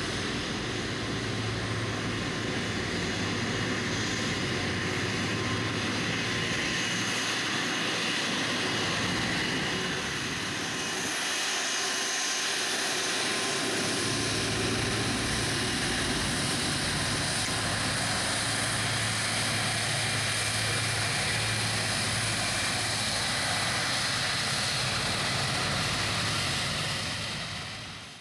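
Airbus A330-243 MRTT's two Rolls-Royce Trent 772B turbofans running at taxi power as the jet rolls past: a loud, steady jet rush with a low hum underneath. The sound fades out near the end.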